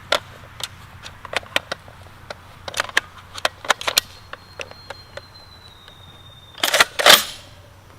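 Scattered sharp clicks and knocks, a faint high steady tone for a couple of seconds, then a short, loud burst of noise about seven seconds in.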